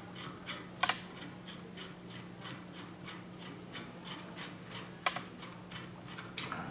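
Center bolt of a Posi Lock mechanical puller being turned by hand, a soft rhythmic scraping about four times a second with two sharp metal clicks, about a second in and about five seconds in, as the pulled part slides off the shaft.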